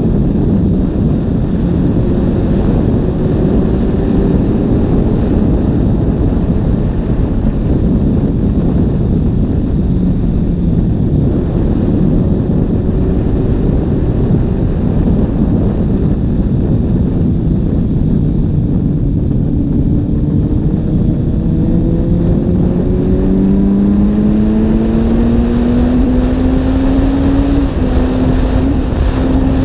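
Suzuki GSX-S750 inline-four with an IXRACE aftermarket exhaust running on the move, heard from the rider's position over wind and road rush. Its engine note climbs steadily in the last several seconds as the bike accelerates.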